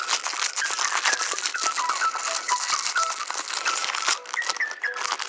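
Plastic and foil toy packaging crinkling and rattling in the hands as it is opened, with many small crackles and clicks. Background music with short, high, stepping notes plays underneath.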